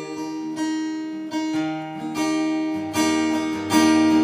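Acoustic guitar strummed chords in an instrumental gap between sung lines, the chord changing about two-thirds of the way through.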